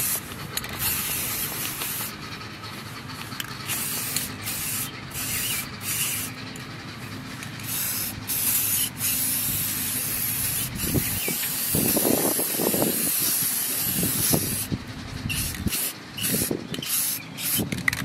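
Aerosol spray paint can hissing in repeated bursts with short breaks between, as a coat is sprayed onto a clay drainage tray.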